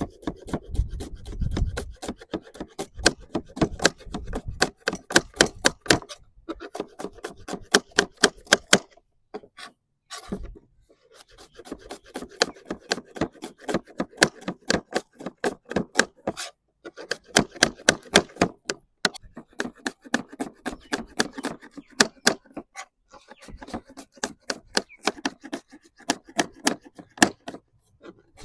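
Knife chopping vegetables on a cutting board: quick, repeated strokes in runs of a few seconds, broken by short pauses.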